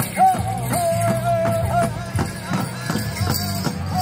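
Powwow drum beaten in a steady, quick rhythm under singers holding high, wavering notes: the song for the dance.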